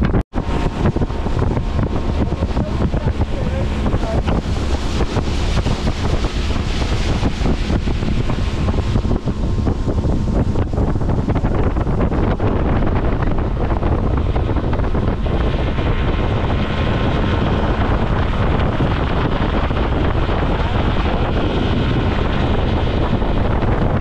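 Heavy wind buffeting the microphone on a small motorboat under way, over the steady running of the boat and water rushing past the hull. The sound cuts out for an instant just after the start.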